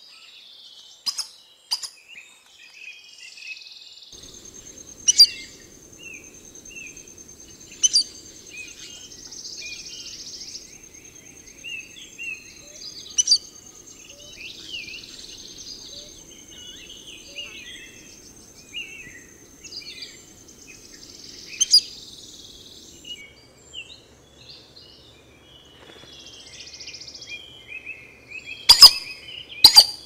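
Tropical forest ambience: assorted birds chirping and calling, with a steady high insect whine through the middle. Several sharp, loud, very short notes or clicks stand out, the loudest about five seconds in and near the end.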